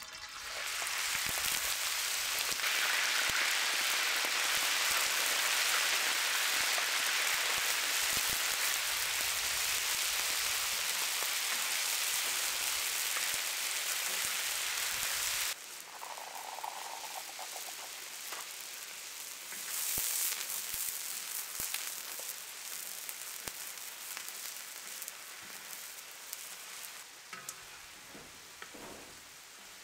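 Chicken gizzards frying in hot oil in a large black pan: a loud, steady sizzle starts as they go in. It drops abruptly to a quieter sizzle about fifteen seconds in, flares briefly a few seconds later, then slowly fades.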